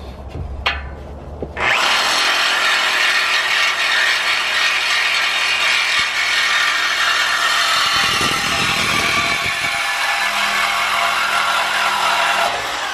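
DeWalt reciprocating saw with a metal-cutting blade sawing through a truck's steel exhaust pipe. It starts suddenly about a second and a half in, runs steadily, and winds down near the end as the pipe is cut through.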